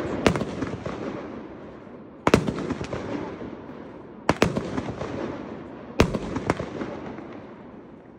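World Class Lone Star Lunatic, a 200-gram consumer fireworks cake, firing single shots one after another, about five in all. Each shot is a sharp report followed by a fading crackle, roughly every two seconds, with the last two coming close together.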